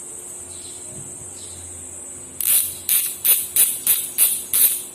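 LD CNC 3.0 rear hub's six-pawl freehub ratcheting as it is spun. About halfway in it starts as a quick series of loud, crisp clicking rattles, about three a second, each fading fast.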